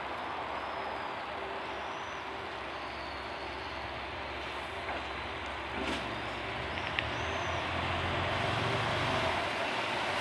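JR Kyushu KiHa 185 series diesel railcar pulling slowly into a station, its diesel engine and wheels making a steady rumble. The rumble grows gradually louder as it approaches, with a deeper engine hum coming in about halfway through.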